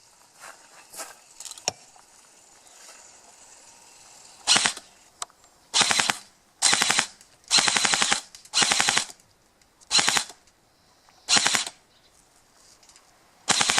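G&G GR16 airsoft electric gun firing about eight short bursts of rapid fire. Each burst is a fast rattle of shots lasting under a second, starting about four and a half seconds in.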